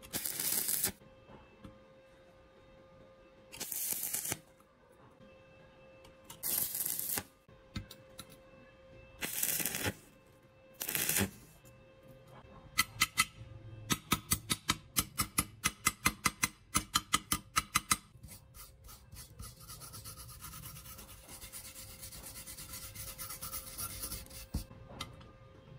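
Stick welder striking short tack welds on steel hinge plates: five brief bursts of arc noise, each under a second, spread over the first eleven seconds. Then a run of quick sharp clicks, about four a second for some five seconds, and after that a wire brush scrubbing the welds with a steady hiss.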